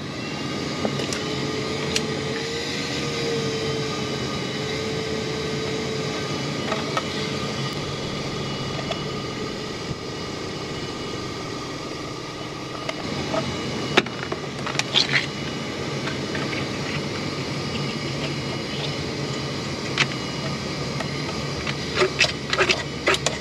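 Steady background hum with a few sharp clicks and rattles of wire and plastic being worked under a vehicle's dashboard, the loudest of them near the end.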